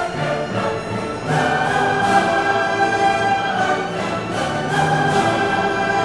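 Background orchestral music with long held notes that change every second or two.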